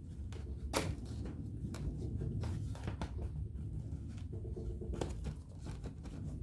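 Scattered knocks and clicks of wooden boards being handled and set against each other, the sharpest knock about a second in, over a steady low hum.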